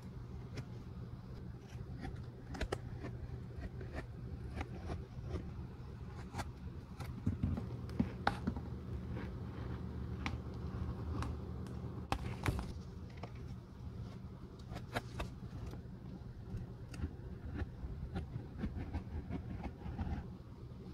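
Knife blade trimming the overhanging edge of a newly fitted black sole around a Birkenstock sandal's cork footbed: a run of small, irregular crackles and clicks as the blade cuts, over a steady low hum.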